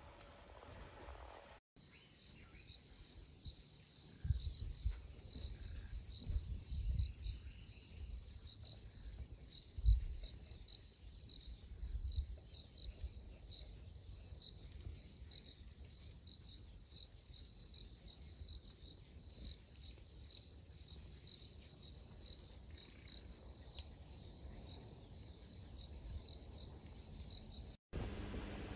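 An insect chirping in a steady run of evenly spaced, high-pitched pulses. Irregular low rumbling bursts come through in the first half.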